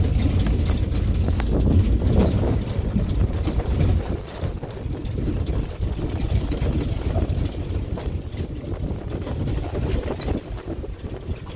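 Wind buffeting the microphone as a dense low rumble, with a light, fast, regular ticking over it; the rumble eases about four seconds in.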